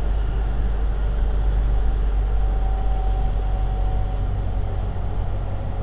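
Cabin running noise of a JR 255 series electric train under way: a steady low rumble of wheels on track, with a faint thin whine in the middle.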